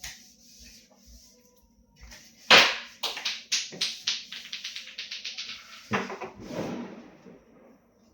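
Quick back-and-forth scrubbing, about four or five strokes a second, set off by a sharp knock and ending in a short rush of noise, as when a fridge part is scrubbed clean by hand.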